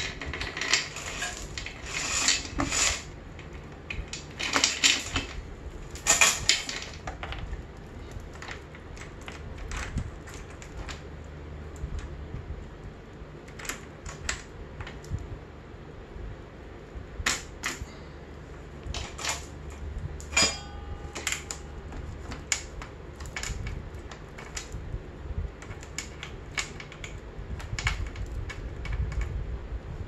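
Metal roller chain being handled and fed around a dirt bike's front sprocket: the links clink and rattle in irregular bursts, busiest in the first several seconds. About twenty seconds in, one sharper metallic clank rings briefly.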